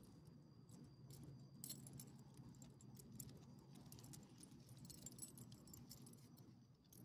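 Faint jingling of a small dog's metal collar tags and leash clip as the dog shakes and wriggles on the pavement, a scatter of light clicks over a low steady hum.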